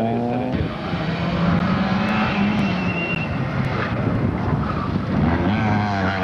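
Rally car engines running hard, their pitch rising and falling several times as the cars accelerate, lift and shift through a corner.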